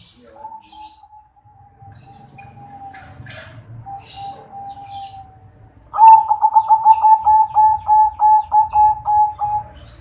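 Zebra dove (perkutut) of a crossbred local × Bangkok line singing. A soft drawn-out coo is followed, about six seconds in, by a loud rapid run of about fifteen coo notes, about four a second.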